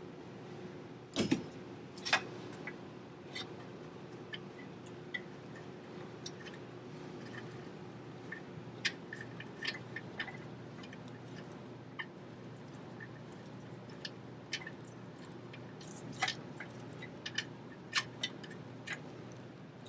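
Scattered light metallic clicks and ticks of a diesel truck's NOx sensor being unscrewed by hand from its threaded boss in the exhaust, with a couple of sharper knocks about a second and two seconds in. A faint steady hum runs underneath.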